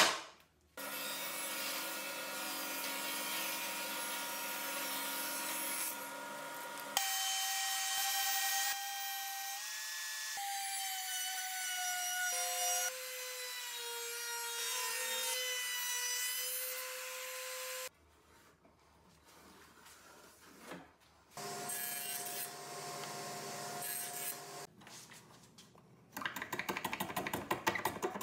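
A run of short woodworking clips: power tools running and cutting wood, including a Ridgid trim router mounted upside down routing the edges of a wood strip, its steady whine dropping in pitch as the bit takes the cut. Near the end comes fast, rhythmic rasping of sandpaper rubbed by hand over a wooden tenon.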